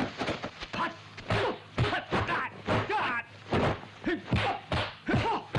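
Kung fu movie fight soundtrack: a fast series of dubbed punch and kick impact effects, about two a second, mixed with the fighters' shouts and grunts.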